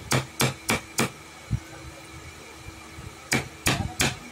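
Hammering on wood, quick sharp strikes about three a second. A run of four is followed by a single duller knock about a second and a half in, then a pause, and a new run starts near the end.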